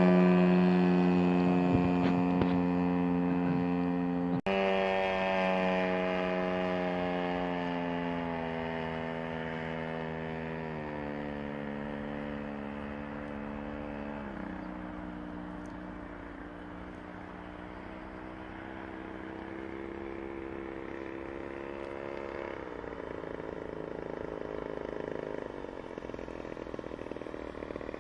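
Engine of a large-scale Pitts S1 model biplane in flight: a steady buzzing drone that fades as the plane flies high and away, drops in pitch in two steps about eleven and fourteen seconds in, and grows louder again near the end as it comes back low.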